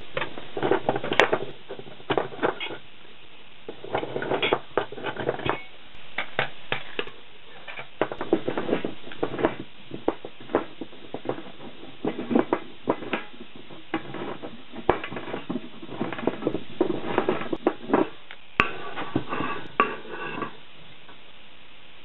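Irregular metallic clicking and clattering of thin sheet-metal cans being worked by hand, including a hand can opener cranked around the rim of a steel paint can to cut it off. It stops shortly before the end.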